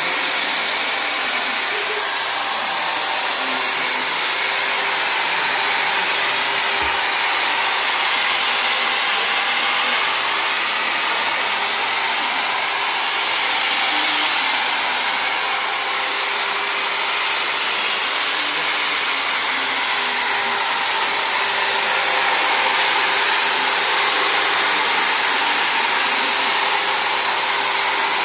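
Handheld electric angle polisher with a round polishing pad running steadily, buffing a marble countertop to a shine; a continuous motor whine that swells slightly in places.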